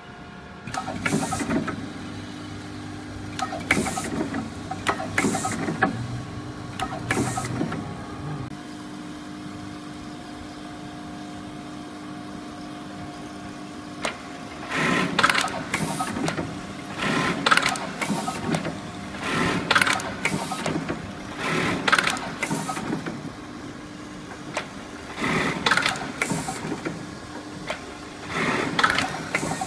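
Industrial automatic button-attaching sewing machine running its sewing cycles: short bursts of rapid stitching about a second long, repeating roughly every two seconds for most of the second half. Under the first few bursts a steady machine hum runs for about eight seconds.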